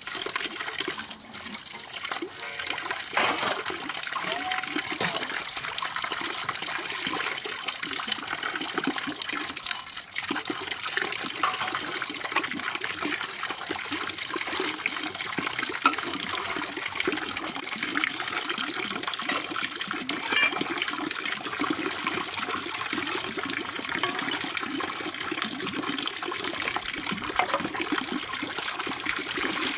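Water from an outdoor tap running steadily and splashing into a water-filled wok as aluminium bowls are rinsed in it, with a few sharp knocks of metal dishes.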